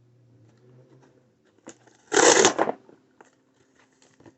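A subscription box and its packaging being handled, with one brief, loud rustle about two seconds in, after a small click.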